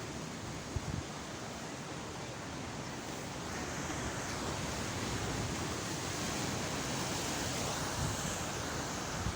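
Sea waves washing on the shore, a steady rushing surf that swells a little about three and a half seconds in.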